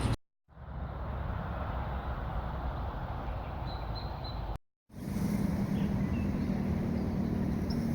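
Outdoor ambience: a steady low rumble of background noise with a few faint, short bird chirps. A low steady hum joins about halfway through, and the sound cuts out briefly twice where clips are joined.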